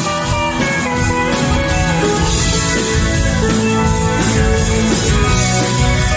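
A live rock band playing a song, with drum kit and guitars over keyboards, many notes sounding together at once.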